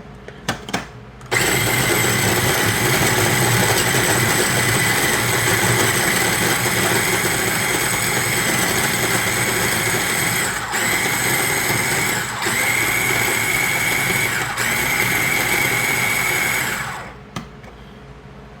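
Electric food chopper running loaded with chunks of bell pepper and garlic. It switches on abruptly about a second in and runs steadily with three brief breaks before stopping near the end.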